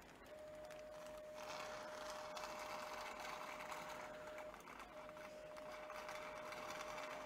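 Radiofrequency ablation generator giving its steady activation tone while the wand is fired in the shoulder joint, with a short break about four and a half seconds in. A faint hiss joins from about a second and a half in.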